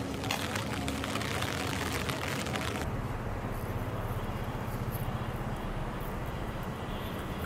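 Rain falling on an umbrella overhead, a dense crackle of drops. About three seconds in it cuts off abruptly, leaving a quieter, steady low rumble of outdoor background noise.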